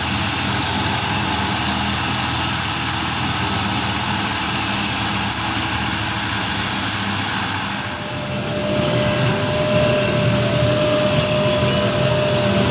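Claas Jaguar forage harvester running, a steady heavy machine drone from its engine and chopping gear. The drone grows louder about eight seconds in, and a steady whine joins it.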